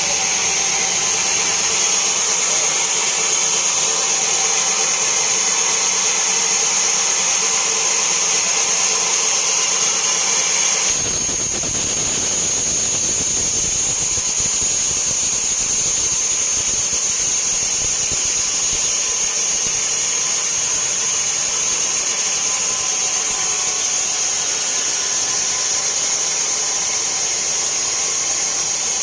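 Sawmill band saw running and cutting a large teak log, a steady mechanical noise with a high, squealing whine. About eleven seconds in, the sound suddenly fills out with a lower rumble.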